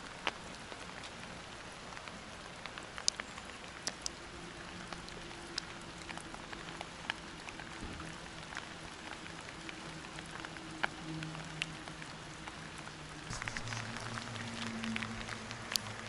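Light rain falling, with scattered individual drops tapping at irregular intervals, some plinking into the water of a birdbath.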